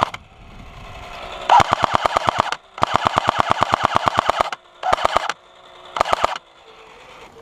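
Electric airsoft gun firing full-auto in four bursts: rapid mechanical clacking of about fourteen shots a second over a gearbox whine, the first two bursts long and the last two short. The gun's battery is running low.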